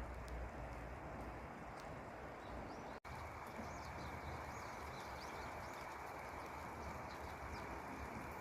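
Steady rush of a valley stream flowing, with small birds chirping now and then over it; the sound cuts out for an instant about three seconds in.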